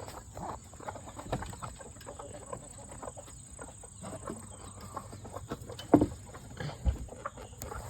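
Chickens clucking in a hen coop, with scattered rustling and handling clicks and one sharp knock about six seconds in.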